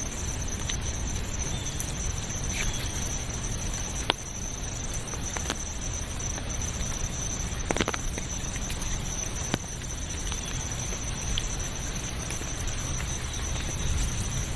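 Forest ambience: a steady high-pitched insect drone over a constant hiss of rain or running water, with a few sharp ticks and pattering drops scattered through.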